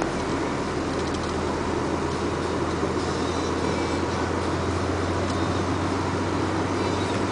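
Truck engine running steadily while driving, heard from inside the cab with road noise: a constant low drone that does not change.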